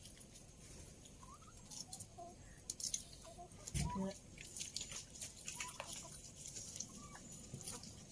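Chickens clucking faintly, with short scattered chirps and one louder low sound about four seconds in.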